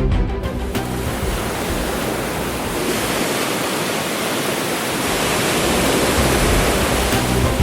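Steady rush of water, swelling a little in the second half, as the music fades out in the first second.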